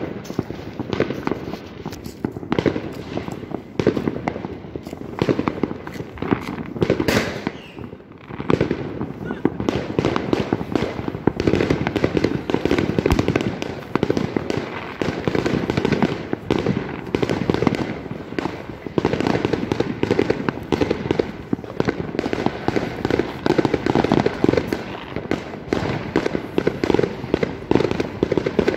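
Many fireworks and firecrackers going off at once: a dense, unbroken crackle of rapid bangs.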